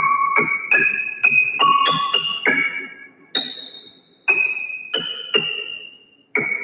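Electric-piano melody of single struck notes, each fading after it is hit; the notes come quickly at first, then slow to about one a second.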